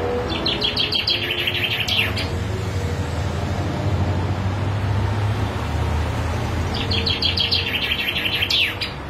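Caged common chaffinch singing two song phrases a few seconds apart, each a quick run of repeated notes ending in a sharp downward flourish. A steady low rumble runs underneath.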